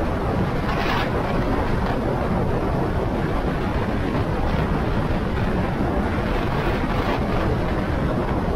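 Motorcycle riding along at steady speed: a constant rush of wind and road noise, with brief gusts of wind on the microphone about a second in and again near the end.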